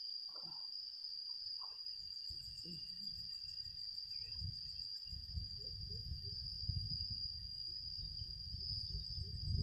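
Insects trilling in one steady, high continuous tone, with a low rumbling noise building from about two seconds in.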